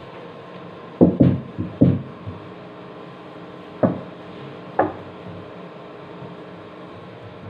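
Dull knocks against the sheet-metal underside of a kitchen range hood as it is wiped down by hand with a sponge. There is a quick cluster of four or five knocks about a second in, then two single knocks about a second apart, over a steady low hum.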